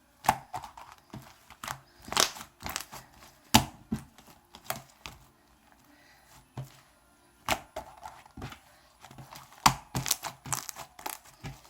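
Slime being kneaded and squeezed by hand, giving irregular sticky crackles and pops as trapped air pockets burst, several to a second with short pauses between handfuls.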